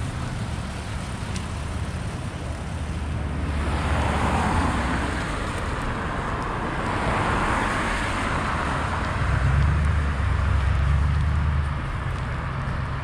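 A car drives past on the road, its tyre noise swelling and fading over several seconds, with a low rumble near the end.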